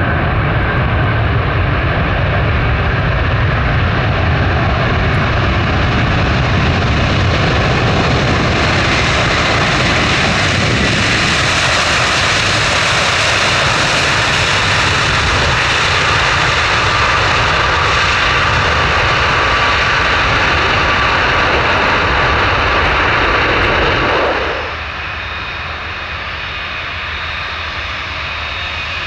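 Large jet airliner's engines running loud and steady, with a high whine and hiss swelling through the middle as the aircraft passes. About 24 seconds in, the sound drops suddenly and goes on at a lower level.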